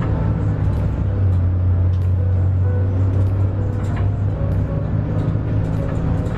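City bus engine running as the bus drives, heard from inside the passenger cabin: a steady low drone that gets louder about a second in.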